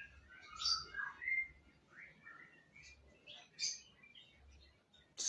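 Orange-headed thrush singing: a run of short, varied whistled and chirping notes, some sliding up or down in pitch.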